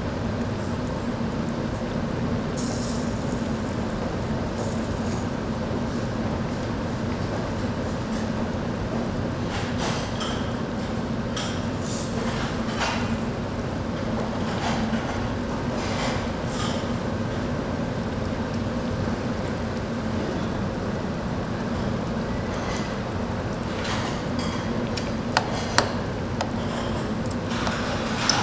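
Restaurant kitchen ambience: a steady mechanical hum, with scattered clinks and knocks of dishes and utensils and two sharper knocks near the end.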